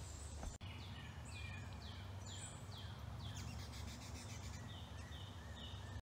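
Faint songbirds calling: a run of short high notes that each slide down in pitch, two or three a second, then three short even notes near the end, over steady low background noise.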